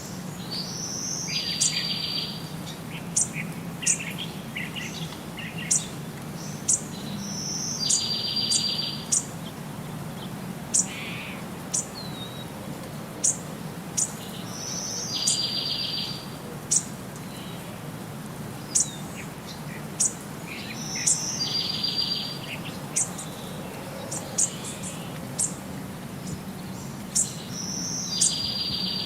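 Birds singing: short, sharp high chirps, with a buzzy trill about a second long that comes back every six or seven seconds, over a steady low hum.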